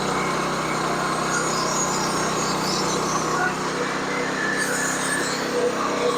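Sawmill's small engine running steadily under load while the saw cuts through a long log.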